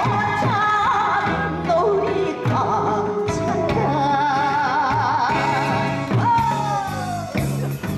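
A woman singing a Korean trot song into a microphone through a PA, over an amplified backing track with a steady drum beat. Her voice carries a wide vibrato on the held notes.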